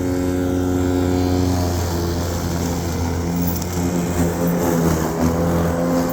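Yeoman eM400C remote-control battery-electric lawnmower running, its motors and blade giving a steady hum. About two seconds in the pitch drops and the sound turns rougher.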